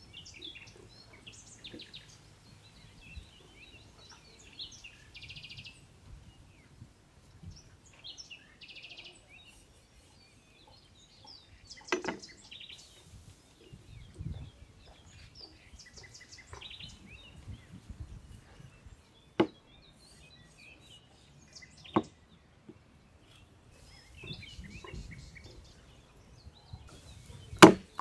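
Small birds chirping in the background, with a few sharp knocks on a wooden chopping block. Near the end a cleaver comes down once, loud, chopping through lemongrass stalks on the block.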